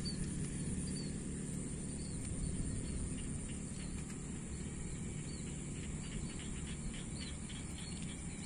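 A steady high-pitched insect chorus, with short bird chirps repeating about once a second, over a continuous low rumble.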